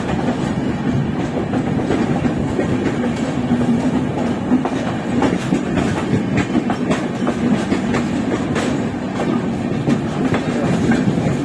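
Passenger train running at speed, heard from an open coach door: a steady wheel-and-rail rumble with a fast, uneven clickety-clack of wheels over rail joints and points, while an express passes close by on the next track.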